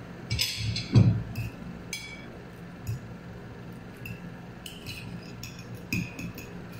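Metal spoon and fork clinking and scraping against ceramic bowls of instant noodles, in several short clusters of sharp clinks, with a louder knock about a second in.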